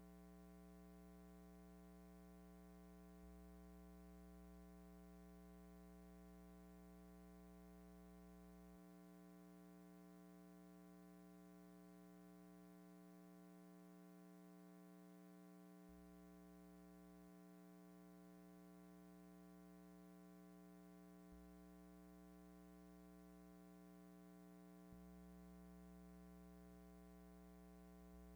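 Near silence with a faint, steady electrical hum; the film has no soundtrack.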